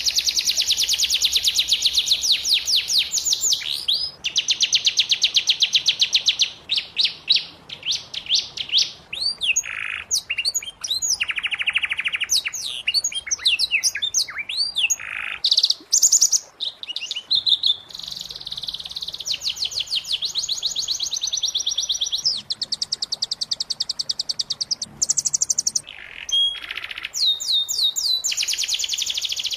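Domestic canary singing a long song of fast trills and rolls, the phrases changing every few seconds with brief pauses between them.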